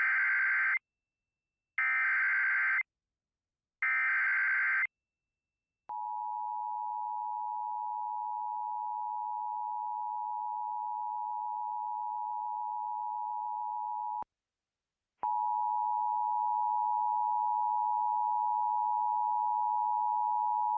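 Emergency Alert System data bursts: three short bursts of SAME header, two seconds apart, opening a new alert. They are followed by the steady EAS attention tone for about eight seconds, a one-second break, and then the attention tone again.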